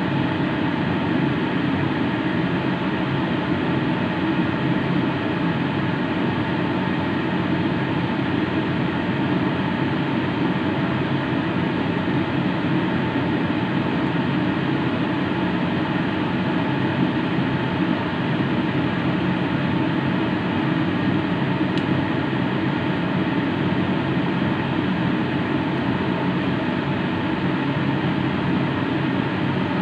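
Steady, unchanging kitchen drone with faint humming tones in it, the background of a stove while cooking oil heats in an empty pan.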